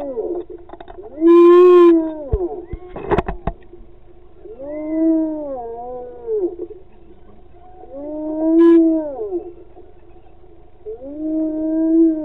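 Spotted hyena whoop calls: a long, howl-like call that rises, holds and falls in pitch, repeated about every three seconds. A few sharp knocks sound after the second call.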